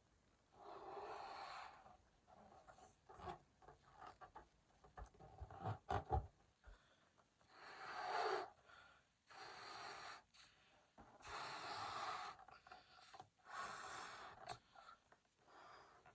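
Breath being blown into a red latex balloon by mouth: about five long puffs of about a second each, with small clicks and rubbing of the latex between them.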